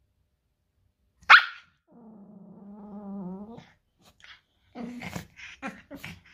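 A Corgi puppy and a Pomeranian play-fighting. A sudden loud huff comes about a second in, then a long, drawn-out growl, then a quick run of short growls and yips near the end.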